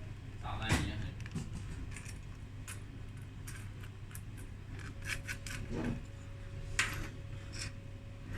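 Light clicks, clinks and rattles of small hard parts and tools being handled on a workbench, over a steady low hum.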